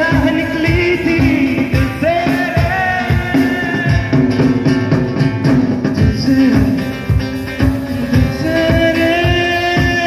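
Live band music: a male vocalist singing a Hindi film song over acoustic guitar, with a drum kit keeping a steady beat.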